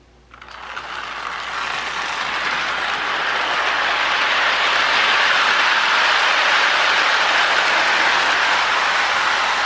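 Lionel 1666 model steam locomotive pulling a train of tinplate cars along the track, a steady whirring rumble of motor and wheels. It starts just after the beginning, grows louder over the first few seconds, then holds steady.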